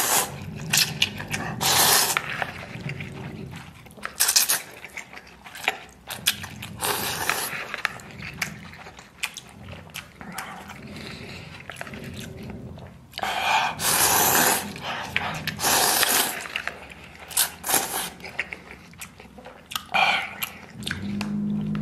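Noodles in soup slurped loudly into the mouth, in repeated bursts of about a second, with chewing between the slurps.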